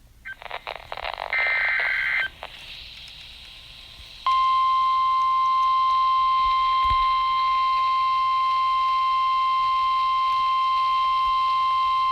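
Weather-radio emergency alert: buzzy two-tone data bursts of the alert header, a couple of seconds of faint receiver hiss, then the steady single-pitch 1050 Hz warning tone sounding continuously from about four seconds in. It signals that a warning message is about to be read.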